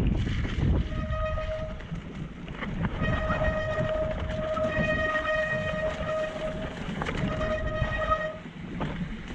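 Mountain bike brakes squealing with a steady high whine as the rider brakes, on and off three times, the longest stretch about three seconds, over the rumble of tyres on a rough dirt trail and wind on the microphone.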